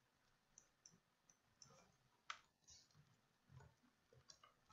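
Faint, irregular clicks of a computer mouse and keyboard keys being typed, the sharpest one about two seconds in.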